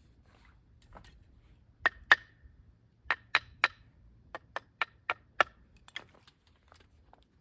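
Firewood being split by batoning: a series of sharp wooden knocks, two, then three, then five in a quicker run.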